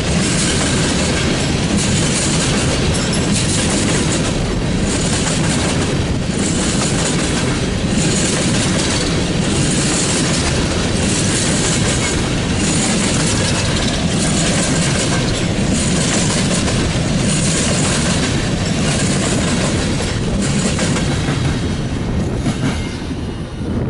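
A Norfolk Southern freight train's cars rolling past close by, the steel wheels clacking over rail joints in a regular rhythm that swells about once a second as each truck goes by. The noise starts to fade right at the end.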